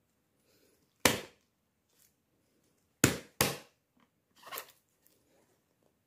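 Orange plastic screw cap being put on and twisted shut on a plastic pickle jar, sealing it. There are sharp crackling plastic clicks: one about a second in, two close together about three seconds in, and a softer one a little later.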